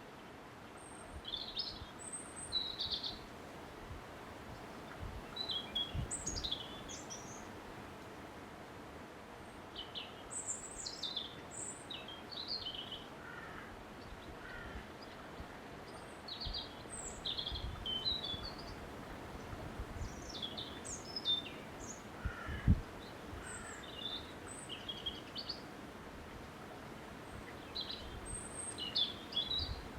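Small birds chirping and calling on and off over a faint steady background hiss, with a few brief low thumps, the sharpest one about three quarters of the way through.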